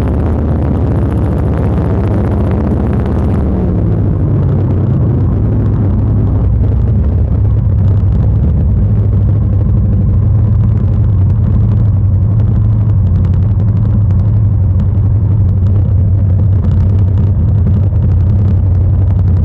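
Motorcycle engine running steadily while riding, a loud low drone, with wind noise rushing over the microphone that fades after about four seconds.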